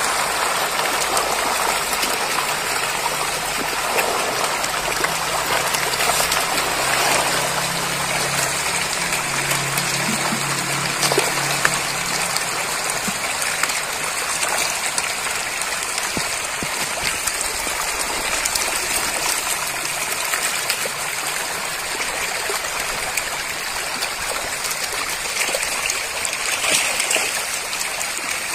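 A dense crowd of pangasius catfish (patin) thrashing at the surface of an earthen pond as they take floating feed. The splashing makes a steady rushing sound like a stream.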